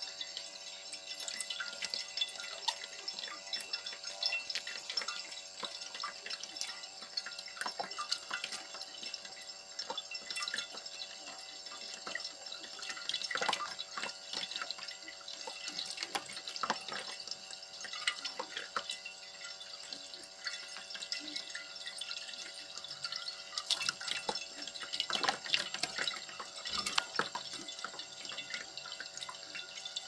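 A thin stream of tap water runs steadily onto a plate in a sink, while a peach-faced lovebird bathes in it and splashes, with bursts of splashing and wing-shaking a little before halfway and again later on.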